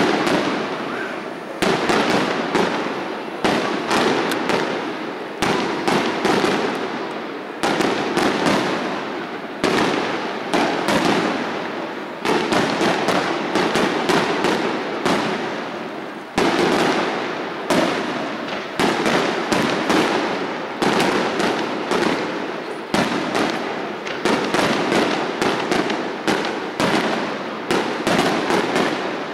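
Aerial fireworks display: shells bursting in a quick, unbroken string of bangs, several a second, each trailing off in echo.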